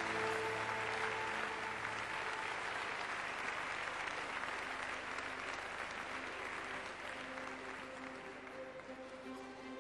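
Audience applauding, the clapping thinning out and dying away over the last couple of seconds.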